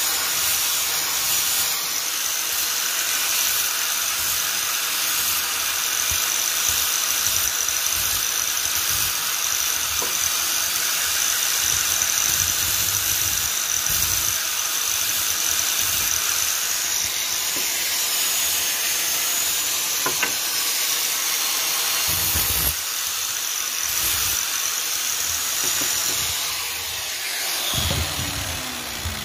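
Handheld angle grinder running steadily with a high whine while grinding a PVC piece smooth. Near the end it is switched off and winds down.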